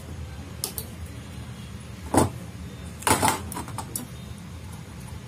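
Side cutters snipping excess component leads on a circuit board: a few sharp clicks, the loudest about two seconds in and a quick cluster about a second later, over a low steady hum.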